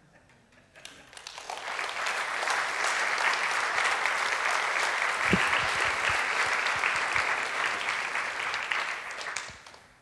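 Audience applauding, swelling up over the first couple of seconds, holding steady, then dying away near the end.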